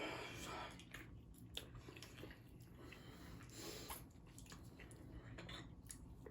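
Faint chewing and mouth sounds of someone eating, with a few soft clicks.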